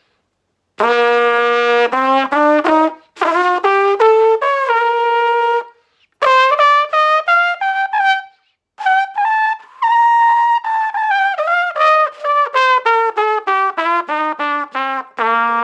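Trumpet with a small 7C mouthpiece playing a C major scale in separate tongued notes. It climbs from low C up two octaves to high C in three phrases with short breaths between, then steps quickly back down. A new long low note starts near the end.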